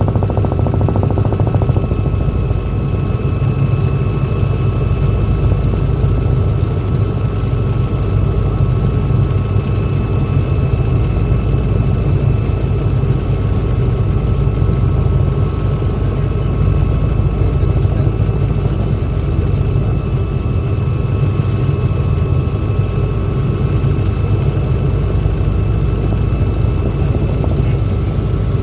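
Helicopter in steady flight heard from inside the cabin: a loud, even drone of rotor and engine with a constant high whine over it.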